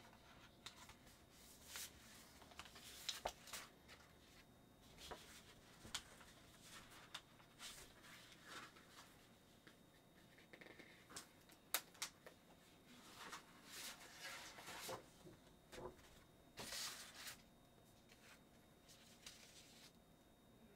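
Faint, scattered rustles and light taps of sheets of patterned scrapbook paper being handled and slid about.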